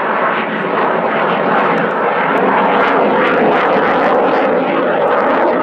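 Loud, steady jet noise from a Saab Gripen fighter's single Volvo RM12 turbofan in flight.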